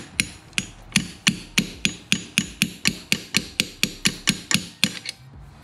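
Light, rapid hammer taps on a steel Allen wrench set against a hydraulic cylinder's gland, metal on metal, about four taps a second, stopping near the end. The tapping works the gland's retaining C-clip down into its groove.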